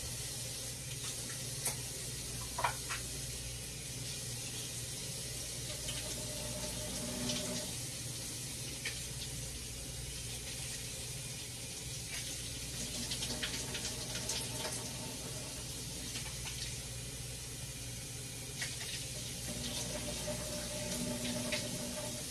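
Kitchen tap running steadily into a sink while canned chickpeas are rinsed, with a few light clicks and clatters.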